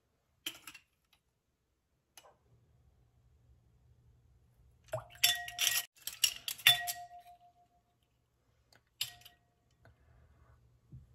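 A measuring spoon clinking against a glass mixing bowl and a small ceramic dish while spices are measured out. There is a soft click about half a second in, a quick run of clinks about five to seven seconds in, some leaving a short ringing tone, and one more clink about nine seconds in.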